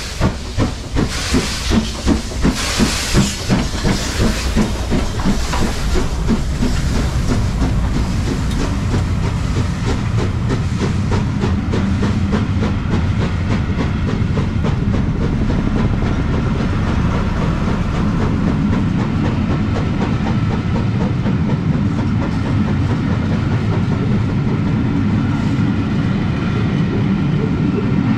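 LMS 4-6-2 Pacific steam locomotive 6233 Duchess of Sutherland pulling away with its train. Sharp exhaust beats with a hiss of steam, about two to three a second, quicken and merge into a continuous rush by about seven seconds in. After that comes the steady rumble of the carriages rolling past.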